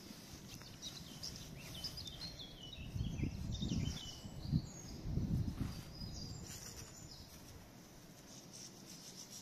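Small birds chirping in short, falling notes for most of the first seven seconds. Under them is a low rumbling noise that swells twice in the middle.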